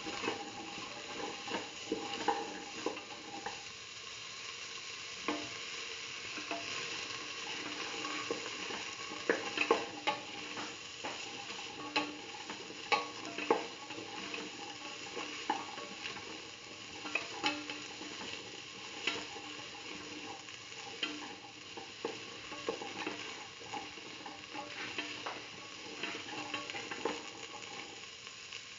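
Beetroot, shallots and red chillies sautéing in oil in a metal pan: a steady sizzle, with the irregular scrape and clatter of a spatula stirring against the pan.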